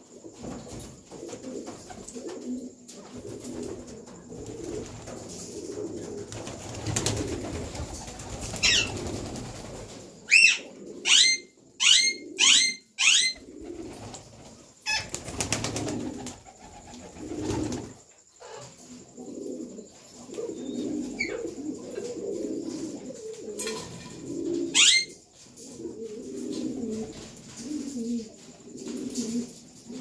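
Domestic pigeons cooing almost without pause, with two bursts of wing flapping as a pigeon takes off. Rose-ringed parakeets give loud, shrill calls over it: a quick run of five about ten seconds in, and a few single calls before and later.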